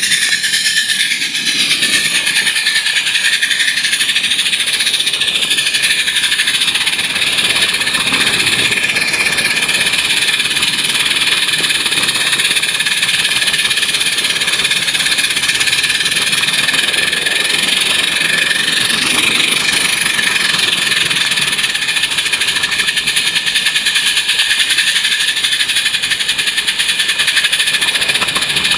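Small 16mm-scale live-steam locomotive running at close range, giving a loud, steady, high-pitched hiss of steam.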